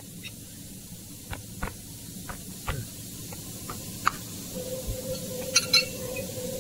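Soft knocks and scuffs of shoes and a small steel angle piece being nudged across a rubber floor mat, then a few sharp metallic clinks near the end as the steel piece is picked up and handled against a steel vise. A steady hum comes in about two-thirds of the way through.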